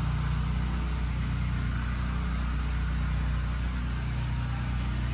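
Pressure washer running steadily while its turbo nozzle blasts water onto stone stepping stones. The engine's steady hum sits under a constant hiss of spray.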